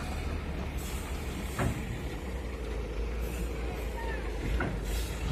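Heavy diesel truck engine running at a steady low idle, with a few short hisses of air, like air-brake releases, and a couple of sharp knocks.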